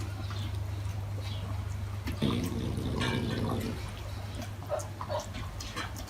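A sleeping French bulldog snoring: one buzzy snore lasting about a second and a half, a couple of seconds in, over a steady low hum, with small clicks and snuffles scattered around it.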